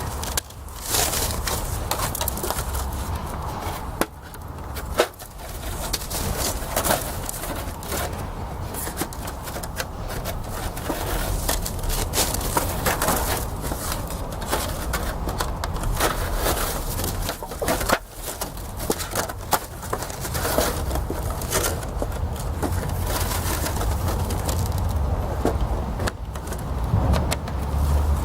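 Metal plates of a slot-together fire pit knocking, clicking and scraping as they are slid into one another, irregular clicks throughout over a steady low rumble.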